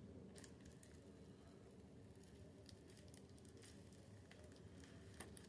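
Near silence: faint room tone with a low hum and a few faint small clicks, one a little louder about five seconds in.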